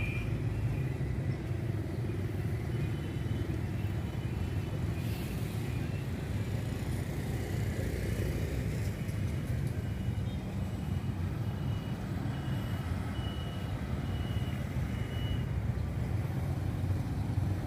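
Street traffic of motorbikes and a car passing: a steady low rumble, with a faint high-pitched beep repeating evenly from about three seconds in until near the end.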